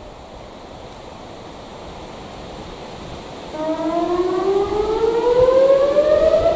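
ACA Alertronic AR-1600 electronic siren during an all-tones test. After a lull of about three and a half seconds it starts a new tone: a slow, steady rise in pitch over about three seconds.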